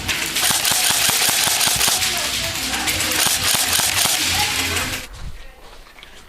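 Airsoft guns firing rapid full-auto bursts, a dense clatter of shots that stops about five seconds in.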